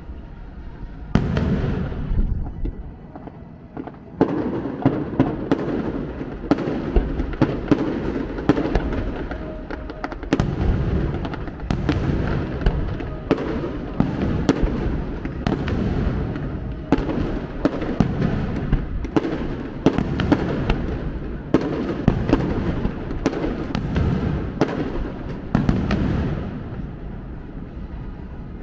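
Aerial firework shells bursting in quick succession: many sharp bangs and crackles over a low rumble, thinning out and fading near the end.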